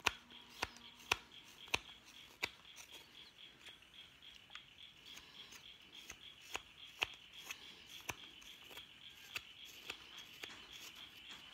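A carving knife slicing wood off the back of a wooden spoon blank: a series of short, crisp cutting clicks, roughly one or two a second, with the strongest cuts in the first couple of seconds.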